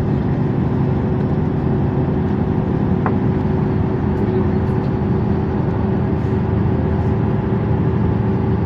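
MAN Lions City A20 EEV city bus engine idling steadily, a constant low hum that neither rises nor falls.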